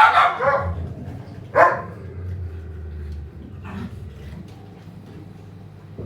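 A dog barking: two loud barks about a second and a half apart, then a fainter third bark near four seconds in.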